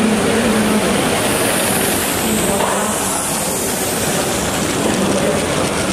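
A small live-steam model locomotive running past close by with its train of wagons: a steady hiss of steam with the wheels rolling on the track, the hiss brightest around the middle.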